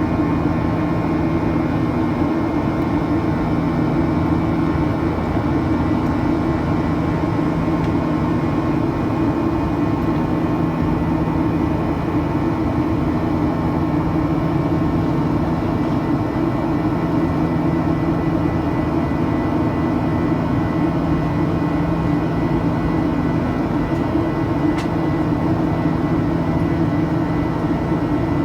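Boeing 737-800 cabin noise in flight: the steady drone and rush of its CFM56 jet engines and airflow, with several steady engine tones held at an even level.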